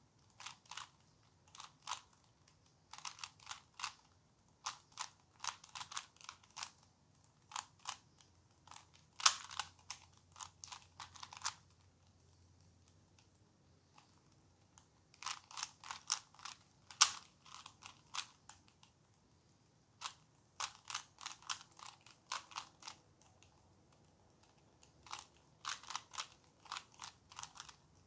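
A Rubik's Cube's plastic layers being twisted by hand during a solve: runs of quick clicking and clacking turns, broken by pauses of a couple of seconds between runs.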